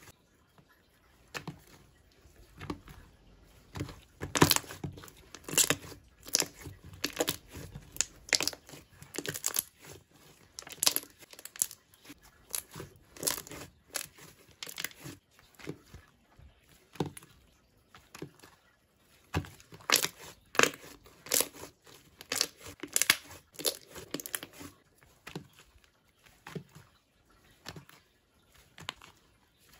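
Thick cream-coloured slime being kneaded, pressed and stretched by hand, making sticky crackles and pops. These come irregularly, several a second and in clusters, as the slime is folded and pulled apart.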